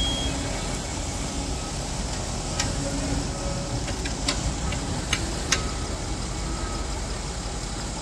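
Street traffic: cars passing through a city intersection with a steady rumble and tyre noise. A few sharp clicks come at uneven intervals through it.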